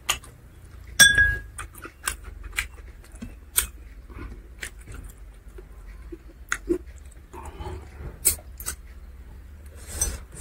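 Close-up chewing and lip-smacking of a person eating by hand, with irregular sharp mouth clicks and one louder click about a second in.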